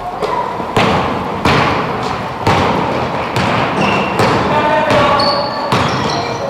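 Basketball bouncing on a hard court floor with an echoing ring, the thuds landing irregularly about once a second. Short high squeaks, likely sneakers on the court, come in the second half.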